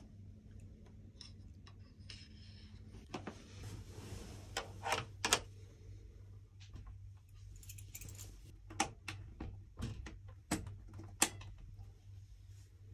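Scattered clicks, knocks and rattles of a sleeping capsule's louvred door being handled and shut, with the sharpest knocks about five and eleven seconds in, over a low steady hum.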